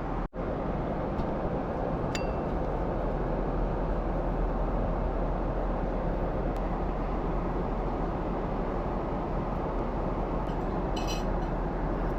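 Steady jet airliner cabin noise, an even rush of air and engines. About two seconds in comes one light ringing clink of tableware, and near the end a brief rattle of small clicks.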